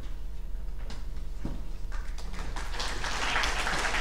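Audience applause that starts about halfway through and grows, over a steady low hum; a few single knocks come before it.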